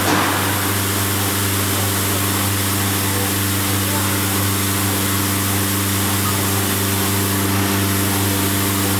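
Tigertec TR408tk CNC router with a tangential knife head running while it cuts a sheet of board. It makes a steady machine hum with a broad hiss over it, unchanging throughout.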